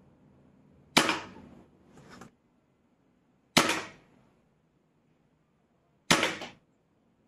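Three shots from a silenced Weihrauch HW80 spring-piston air rifle, each a sharp crack with a short ringing decay, about two and a half seconds apart. A fainter sharp click follows about a second after the first shot.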